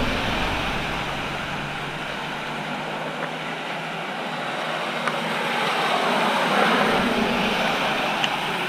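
A motor vehicle passing on a wet road, its sound swelling about six seconds in over a steady hiss.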